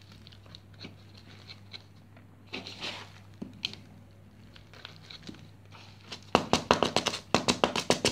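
Bark chips rustling and clicking faintly as they are worked in among the orchid's roots in its pot. About six seconds in, the pot is shaken, making a loud quick rattle of bark, several taps a second, to settle the bark between the roots.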